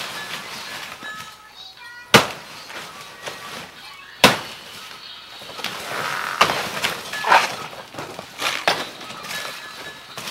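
Sharp cracks and snaps from a banana plant being broken apart, two loud ones about two seconds apart, then a few seconds of rustling leaves and smaller snaps.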